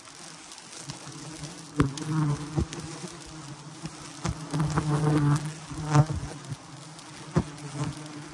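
Swarm of honey bees from a disturbed wild hive buzzing close to the microphone: a steady low buzz that swells louder now and then, with a few sharp clicks.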